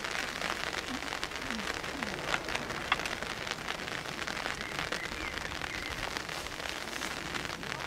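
Steady rain falling, with many small sharp drop hits close to the microphone and one louder one about three seconds in.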